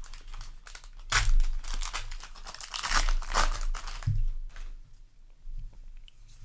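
Trading card booster pack wrapper being torn open and crinkled, with two louder tearing bursts about a second in and about three seconds in.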